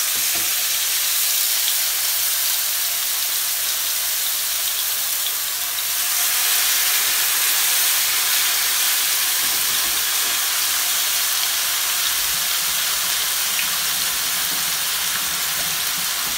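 Rump steaks sizzling in hot oil in a frying pan as they are seared: a steady, even hiss.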